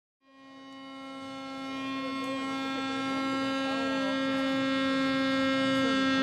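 A steady pitched hum with many overtones, fading in from silence and growing louder, with faint voices behind it.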